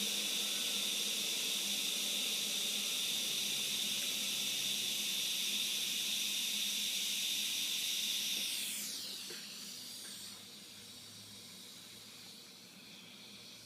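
TIG welding arc hissing steadily. About two thirds of the way in, a falling whine sounds and the hiss drops to a much quieter level.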